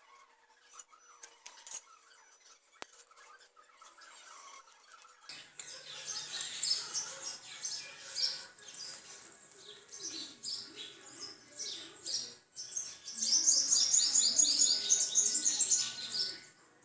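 Birds chirping: the first few seconds hold only faint ticks, then high chirps start about five seconds in and build to a dense run of rapid chirps near the end.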